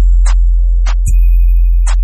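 Background music with a deep, steady bass and sharp ticking percussion hits at a regular beat.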